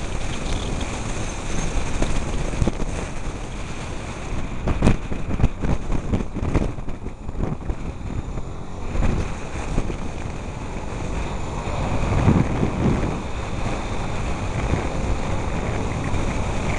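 Wind rushing and buffeting over the microphone of a motorcycle-mounted camera while riding, with road and engine noise underneath. It eases briefly partway through and picks up again.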